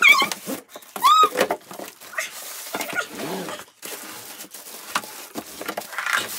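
A dog whimpers twice in the first second or so, short whines that rise and fall in pitch. Then cardboard and plastic wrapping rustle and scrape as a plastic-wrapped folding wagon is pulled out of its box, with a louder crinkle of plastic near the end.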